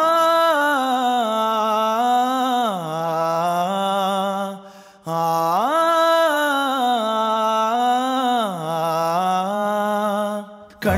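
Background music: a sustained, voice-like melody with a chant quality, in two phrases of about five seconds each. Each phrase rises at its start, holds and falls near its end.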